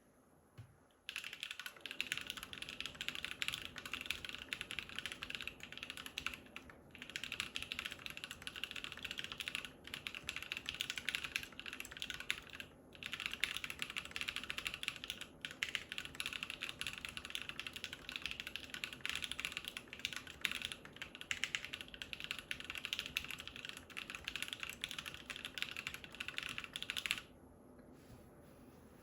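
Typing on a mechanical keyboard with an acrylic Arisu case, lubed and filmed NovelKey Cream linear switches and ePBT keycaps: a fast, steady stream of keystroke clacks that starts about a second in, has a few brief pauses, and stops a couple of seconds before the end.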